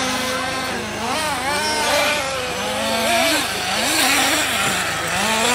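Several small nitro (glow-fuel) engines of RC off-road buggies running hard, their overlapping high-pitched notes rising and falling over and over as the cars accelerate and brake around the track.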